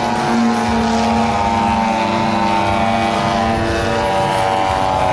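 Desert Aircraft DA-85 single-cylinder two-stroke gas engine of a giant-scale RC Ultimate aerobatic biplane, running at power in flight with its pitch rising and falling as the plane manoeuvres.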